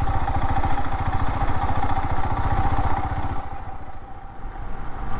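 Royal Enfield Himalayan's single-cylinder engine running at low speed, its firing pulses heard as a steady thump. The sound dips in level about four seconds in.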